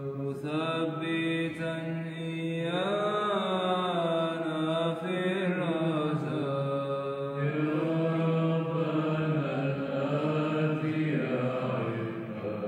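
Byzantine Orthodox chant: a voice sings long, slowly bending melismatic lines with a steady low drone held beneath.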